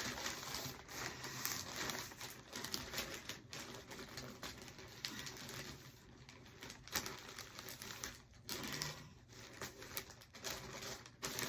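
Packaging being handled while an order is packed: rustling with many scattered light clicks and taps.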